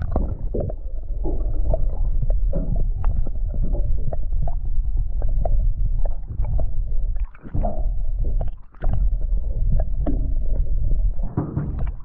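Muffled sound of seawater heard by a camera held under the surface: a heavy low rumble of moving water with scattered clicks and knocks, dipping briefly twice in the second half.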